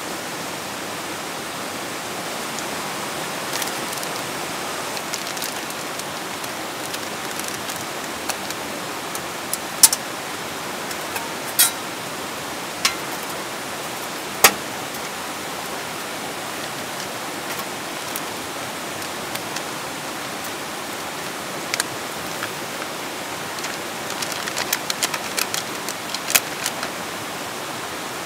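A rocky creek rushing steadily. Over it come a few sharp clinks and taps from handling camp cooking gear, four scattered through the middle and a quick cluster near the end.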